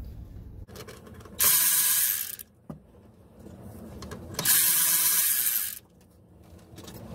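Cordless electric ratchet running in two bursts of about a second each, spinning out the water pump pulley bolts on a MerCruiser 5.0 V8.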